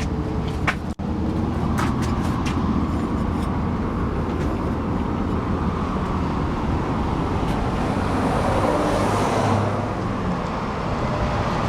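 Steady road traffic noise, a low rumble that swells for a couple of seconds late on as a vehicle passes.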